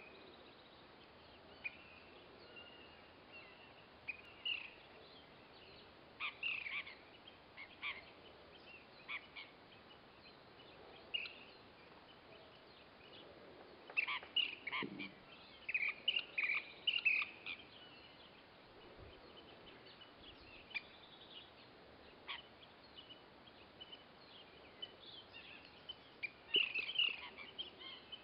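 Small wild birds calling: short chirps and clipped calls, bunched into several flurries with quieter gaps between, over a faint steady outdoor hiss.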